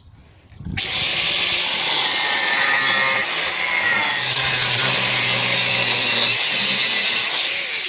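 Angle grinder with a thin cutting disc starts up about a second in and cuts steadily into a metal plate, a loud, even grinding hiss over the motor's hum.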